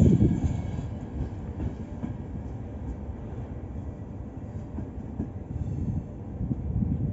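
Locomotive-hauled regional passenger train running out along the rails, its wheels rumbling with some clacking over the track. It is loudest at the start and fades as it draws away, with a slight swell again near the end.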